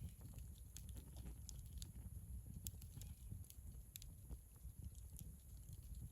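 Wood campfire crackling faintly, with scattered irregular pops and snaps.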